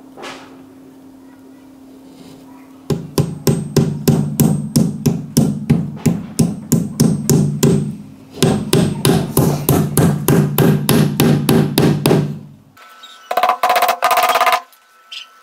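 Steel hammer tapping nail-on plastic feet into the corners of a particleboard cabinet. The taps come in two quick runs of about three to four a second, with a short pause between. A brief pitched sound follows near the end.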